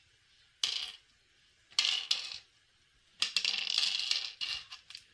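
Small pebbles clattering into the carved hollows of a wooden sungka board as a player drops them one per hole while sowing. Three bursts of clatter, the last the longest.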